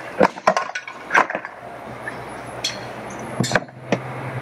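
Irregular sharp cracks and knocks of asbestos siding shingles being broken off and shattering as they land, about half a dozen in all. A steady low hum comes in about halfway.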